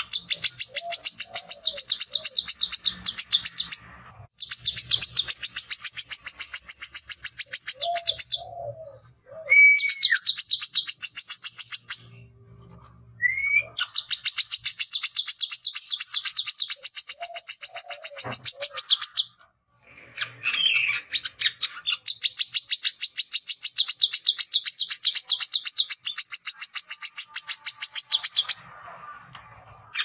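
Male brown-throated sunbird singing its rapid chattering 'ngecret' song: long runs of very fast, high-pitched repeated notes in bouts of several seconds with brief pauses. A couple of short sliding whistles fall between bouts. This is a male's challenge chatter aimed at a rival.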